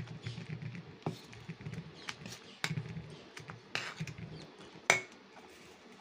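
A steel spoon stirring thick, fermented dosa batter in a steel bowl: a wet, irregular stirring noise with repeated light taps of the spoon on the bowl, and one sharp ringing clink about five seconds in.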